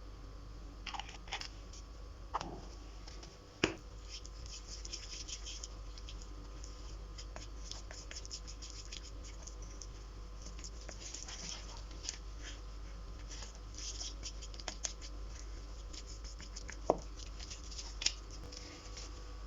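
Soft scratching and crackling with a few sharp clicks, from slime ingredients (flour, powder, oil) being stirred and handled. A steady low hum runs underneath.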